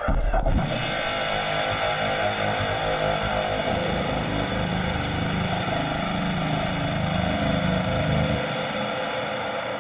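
Dark ambient electronic music: a dense, steady drone of many held tones that comes in abruptly.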